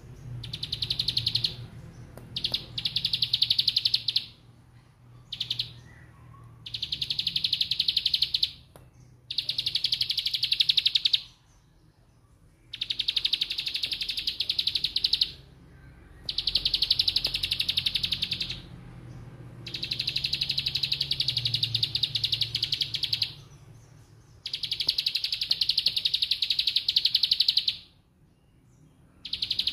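Plain prinia (ciblek sawah) singing in its 'ngebren' style: about nine rapid, buzzing, rattling trills, each one to three seconds long, separated by short pauses.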